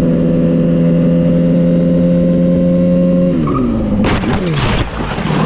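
Motorcycle engine running at steady revs, its pitch then falling away over about a second as the revs drop, followed by a short burst of loud rushing noise.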